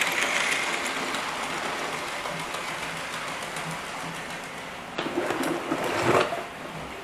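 Model train running on the layout's track, a steady whir of its small electric motor and wheels on the rails, slowly fading as it moves away. A louder noise swells about five seconds in and drops away after six.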